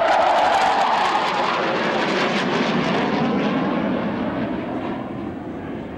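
Two Panavia Tornado jets, each with twin RB199 turbofans, flying past. The jet noise crackles at first, then falls in pitch and fades as they move away.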